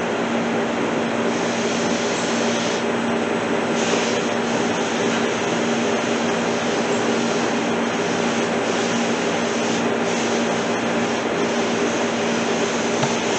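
A steady mechanical drone with a constant low hum, unchanging throughout, like an engine or large fan running nearby.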